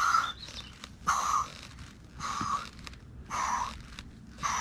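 A man breathing hard and out of breath after exertion, with about one loud breath a second, five breaths in all.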